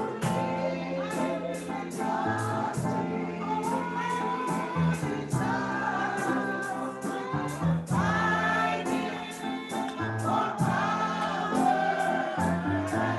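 Gospel music: a group of voices singing with a band, over held bass notes and a steady drum beat.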